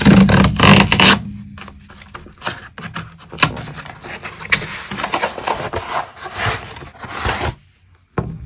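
Galaxy S23 Ultra's cardboard retail box being slid, turned and rubbed against a wooden tabletop: scraping and rubbing, loudest in the first second, then a run of lighter scrapes and handling noises that stop briefly near the end.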